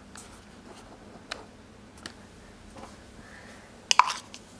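A few isolated light clicks, then a short, louder cluster of sharp clicks about four seconds in, over a faint steady background hiss.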